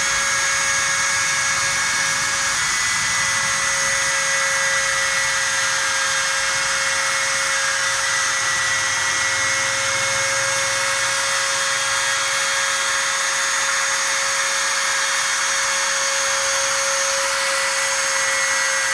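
Spindle motor of an automatic CNC letter-cutting machine for aluminium composite panel, running steadily with a constant high-pitched whine.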